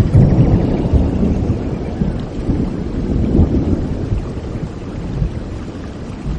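Thunder rumbling over steady rain, the rumble loudest at the start and dying away over the next few seconds while the rain keeps falling.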